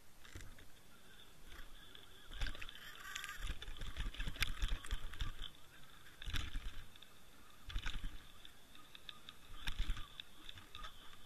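Underwater noise inside a line-mounted camera's housing as a hooked flounder is reeled up: water rushing past, with irregular muffled knocks and sharp clicks as the struggling fish jerks the rig.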